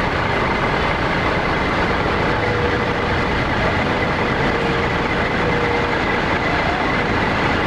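Intercity coach bus driving slowly past at close range, its engine running steadily with faint steady whines over the noise.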